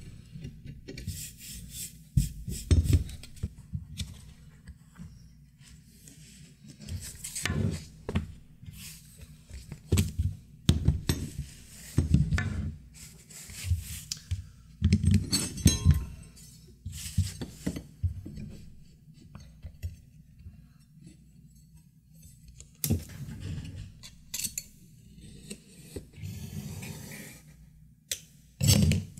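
Irregular workbench handling noises: a wooden stick and a piece of leather moved and rubbed across a cutting mat, with scattered knocks and light metallic clinks from a metal ruler being handled.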